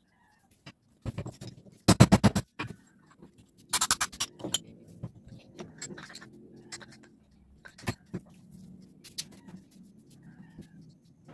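Metal starter-motor parts clinking and knocking as they are handled and set down on a workbench, with a quick run of loud rattling clicks about two seconds in and another about four seconds in, over a faint low hum.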